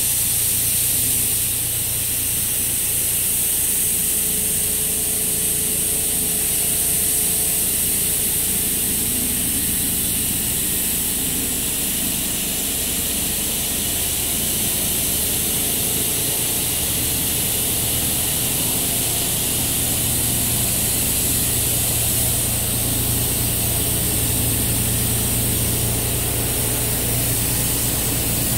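Melt-blown nonwoven fabric production machinery and slitting-rewinding machine running continuously: a steady hiss with a low hum underneath. The hum grows stronger over the last several seconds.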